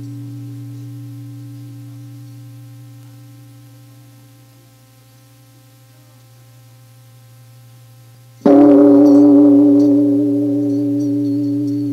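A struck meditation bowl's ringing tones slowly fade away, then the bowl is struck again about eight and a half seconds in and rings loud with several steady tones. A low steady drone sounds underneath.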